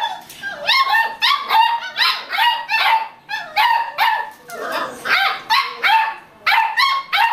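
Beagle puppy barking over and over in high-pitched yelping barks, about two a second.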